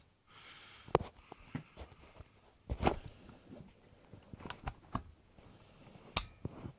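Clicks, taps and light scrapes of a full-metal Galaxy G15 spring airsoft pistol being handled while its slide is worked off. A few sharper knocks come about one, three and six seconds in.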